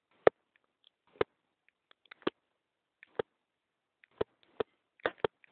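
A series of short, sharp knocks, about one a second at first and coming closer together near the end, with dead silence between them.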